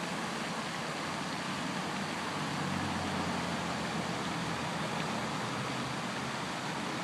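Steady road traffic noise, with a vehicle's low hum swelling slightly about halfway through.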